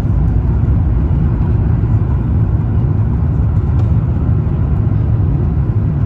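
Steady low rumble of cabin noise inside an Airbus A350-1000 on final approach: its Rolls-Royce Trent XWB-97 engines and the airflow over the fuselage, heard from a window seat over the wing.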